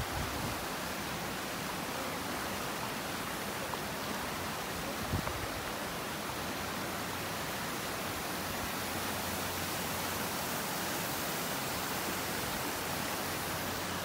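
Upper Rhône, a fast glacier-fed mountain river, rushing over its stony bed: a steady, even wash of water noise.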